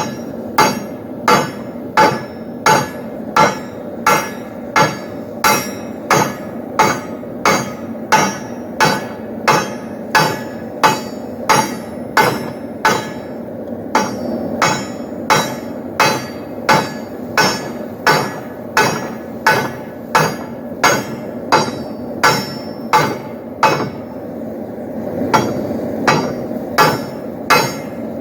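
Blacksmith's hand hammer striking steel on an anvil in a steady forging rhythm, about one and a half blows a second, each with a short metallic ring. The blows pause briefly near the end, then start again.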